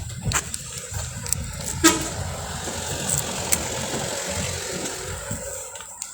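Vehicle engines rumbling while vehicles board a ferry, with a sharp knock about two seconds in followed by a steady hiss lasting several seconds.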